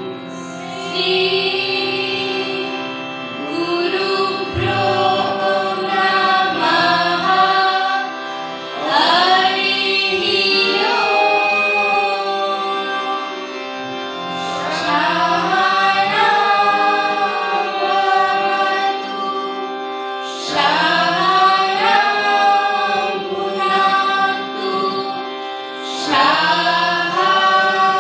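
A devotional song sung together by young voices, accompanied by a harmonium's sustained reedy chords.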